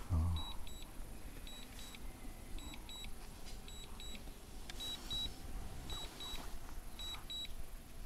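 Drone remote controller giving its return-to-home alert: pairs of short, high beeps repeating about once a second.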